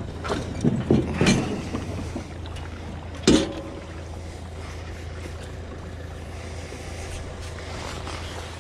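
Jet ski hull and trailer knocking as the craft is pushed off the trailer into the water: a few knocks in the first second and a half, then one sharp, louder clack a little after three seconds, over a steady low hum.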